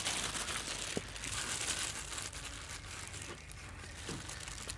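A kitchen knife slicing braised pig intestine on a thick wooden chopping board, with a few soft knocks of the blade against the wood, and the crinkle of disposable plastic gloves as the cut pieces are handled.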